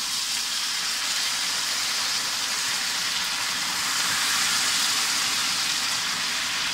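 Melted caramelised sugar sizzling and hissing steadily as water is poured into the hot pan, the caramel boiling up hard around a wooden spoon.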